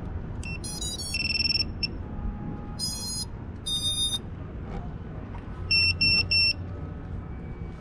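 Small FPV quadcopter powering up as its battery is plugged in: its motors play a run of stepped electronic startup beeps, then three short identical beeps about six seconds in.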